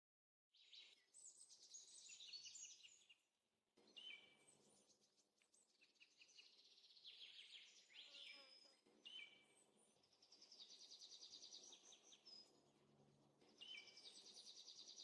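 A songbird singing a run of phrases made of rapid trills and short whistled notes, with brief pauses between them.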